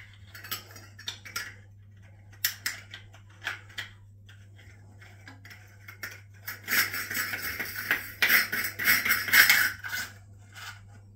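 Chrome shower cover plate being screwed by hand onto a threaded wall-plate fitting: light metallic clicks and ticks, then a spell of metal-on-metal scraping as it turns on the thread, from about six to ten seconds in.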